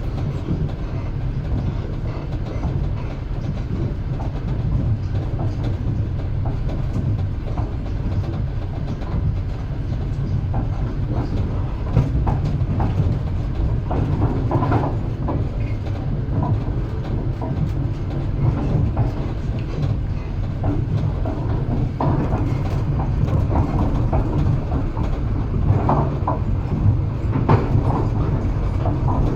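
Train rolling along the track, heard from inside the carriage: a steady low rumble with the clickety-clack of the wheels, and a few short knocks and squeaks in the second half.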